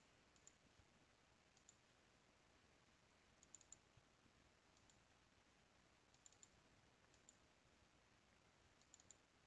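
Near silence, with faint computer mouse clicks now and then, some in quick pairs like double-clicks opening folders.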